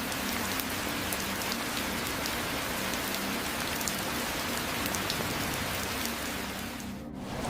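Steady rain falling, with individual drops ticking here and there. The sound dips briefly near the end.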